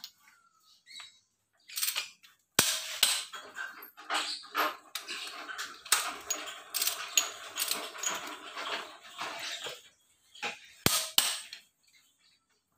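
Metal hand tools and engine parts clinking and clattering during engine assembly: a sharp knock about two and a half seconds in, then several seconds of dense rattling and clicking, then a few separate clicks near the end.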